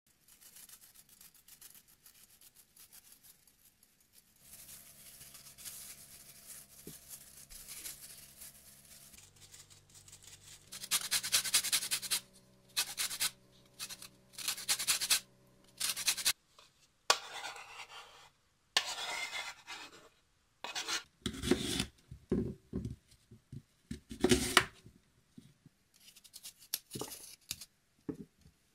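Kitchen food-prep sounds: a lemon rasped in quick strokes across a metal grater, then a knife cutting apples on a wooden chopping board, with scrapes and dull thuds. A faint steady hum runs under the grating.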